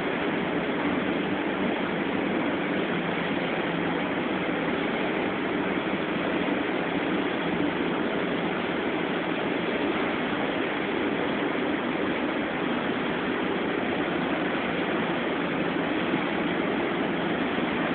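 Steady, even machinery din of an engine assembly shop floor, with no distinct knocks, tones or running engine standing out.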